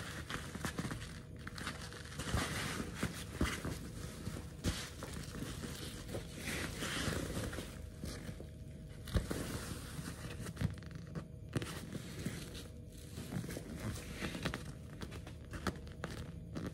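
Handling noise of a canvas backpack: fabric rustling and crinkling, with scattered light clicks and knocks.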